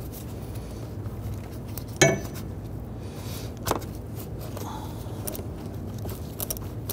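Ratchet and socket work on an intake-tube hose clamp: a sharp snap about two seconds in, a weaker click later, and a quick run of light ratchet clicks near the end, over a low steady hum.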